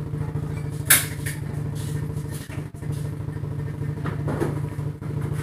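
A small engine idling with a steady low hum, and a single sharp click about a second in.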